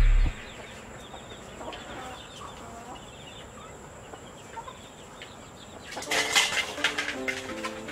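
Chickens clucking, with a louder run of clucks about six seconds in, over faint bird chirps.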